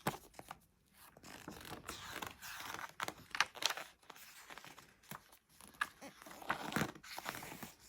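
Paper rustling and light handling knocks of a book being opened and its pages turned, in irregular scrapes and short clicks.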